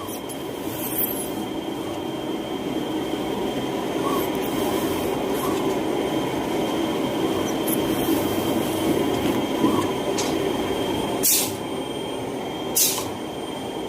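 Factory machinery running steadily, with a constant high whine over a rumbling drone. There are two short bursts of hiss near the end.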